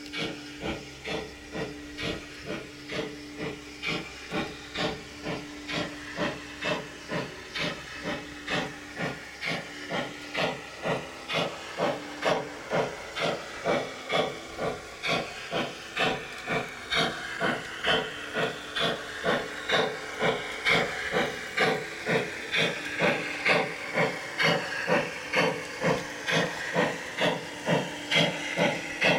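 Gauge 1 model steam locomotive chuffing steadily, about two exhaust beats a second, with a steady hum underneath. The beats grow louder as the locomotive comes closer.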